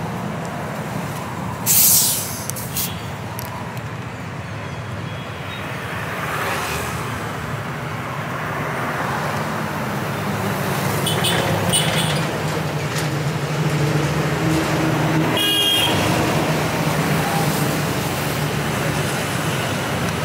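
Steady street traffic noise with a low engine rumble. About two seconds in comes one short, loud burst of hiss or clatter; later there are a few clinks and, near three-quarters through, a quick ringing rattle.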